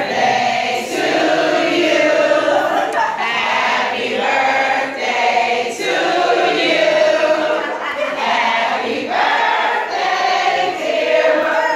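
A crowd of party guests singing together in chorus, mostly women's voices with some men's, in continuous sung phrases.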